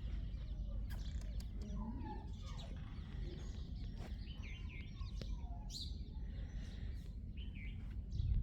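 Small birds chirping and calling, many short scattered chirps, over a steady low rumble.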